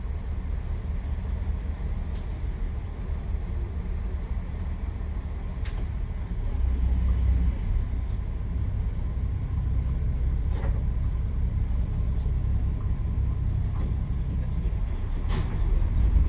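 Boat engine running with a steady low rumble, heard from on board the moving boat, swelling briefly about seven seconds in and again near the end.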